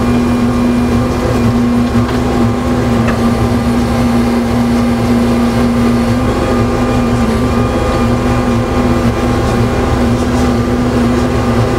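Gradall G3WD telescoping-boom excavator's diesel engine running steadily under hydraulic load, a constant drone with a steady tone riding over a low rumble, while the bucket is worked over a dump truck bed.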